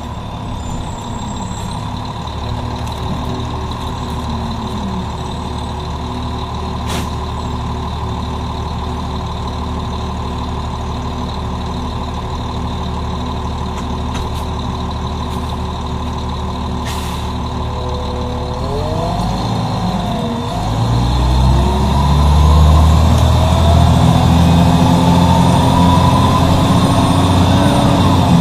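Cummins M11E straight-six diesel of a 1996 Nova RTS transit bus idling steadily, with two sharp clicks; about 19 seconds in it revs up and grows louder, its note rising steadily as the bus accelerates.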